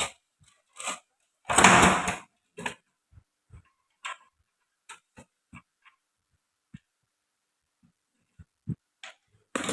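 Hands working on the juicer's parts: scattered clicks and knocks, with a louder half-second noise about two seconds in.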